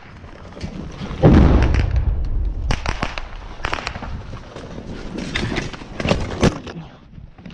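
Gunfire in a firefight: single rifle shots cracking at irregular intervals, some close and some distant, with one louder, deeper boom about a second in that rumbles on for about a second.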